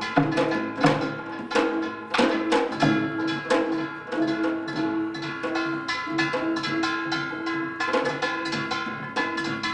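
Korean samulnori percussion ensemble playing a fast, dense rhythm of drum and gong strokes, with a held pitched tone sounding through it.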